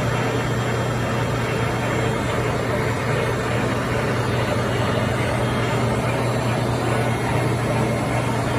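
A machine running steadily: a low, even hum under a constant rushing noise.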